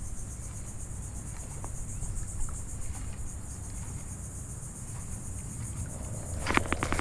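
Insect chorus buzzing steadily at a high pitch, over a low rumble of wind on the microphone. A quick run of sharp clicks comes near the end.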